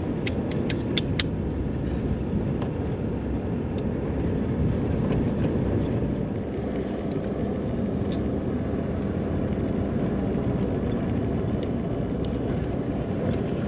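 Steady rumble of a vehicle driven on a dirt road, heard from inside the cab: tyres on the gravel surface and the engine running. A few light clicks come in the first second or so.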